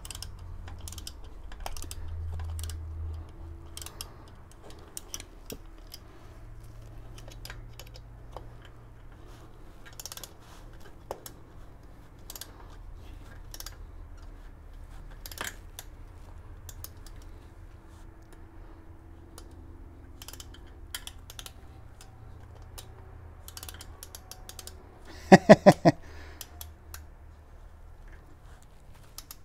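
Light, scattered clicks and knocks of a screwdriver working screws into a metal bench frame, with a faint low hum underneath. About 25 seconds in come four quick, loud rattling pulses.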